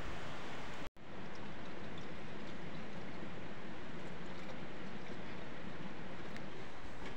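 Steady rush of running water, which breaks off for an instant about a second in.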